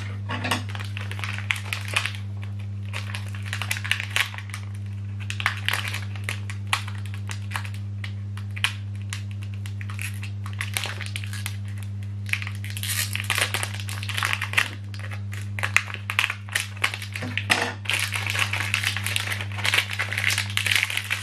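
Plastic ink-cartridge packaging crinkling and crackling as it is handled and cut open with scissors, in irregular bursts of small clicks that are densest about two-thirds of the way in and near the end. A steady low hum runs underneath.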